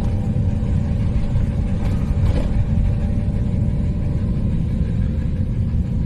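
Maxus V90 camper van driving on a rough, broken road: steady engine and road rumble, with one short jolt a little over two seconds in.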